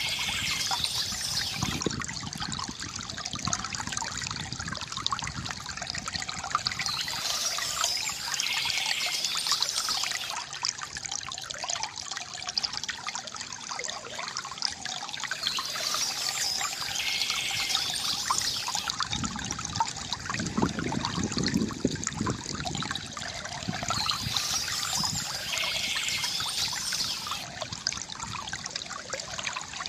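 Shallow stream water trickling and babbling steadily, brightening in a hiss of spray about every eight seconds.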